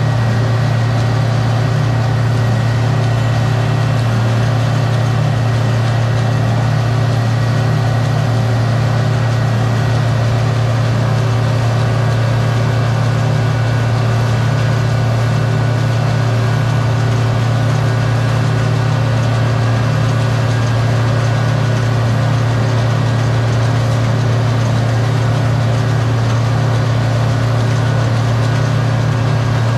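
A farm machine's diesel engine running at a steady speed, a constant low hum with steady higher tones and no change in speed.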